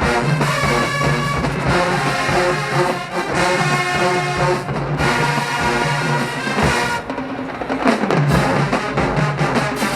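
HBCU-style marching band playing loud brass, with trombones and trumpets carrying the tune over drums.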